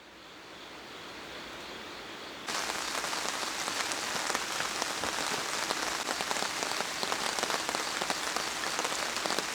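Rain falling in a steady, dense patter that fades in, then gets suddenly louder about two and a half seconds in.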